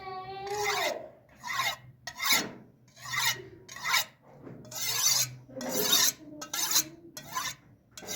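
A steel knife blade drawn again and again across the ceramic insulator of a car spark plug to sharpen its edge. The scraping strokes come about once a second.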